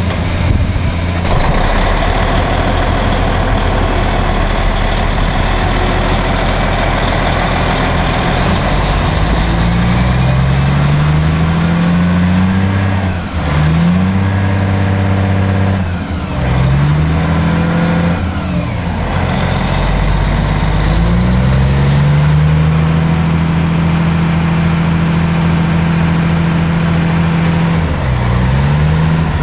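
Caterpillar D9T bulldozer's C18 six-cylinder diesel engine running after start-up. It is loud and steady, and rises in pitch several times as it is revved, once held high for several seconds before dropping back near the end.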